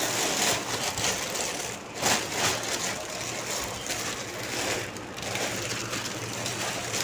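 Plastic bags rustling and crinkling as they are handled and rummaged through, with louder surges about two seconds in and again about five seconds in.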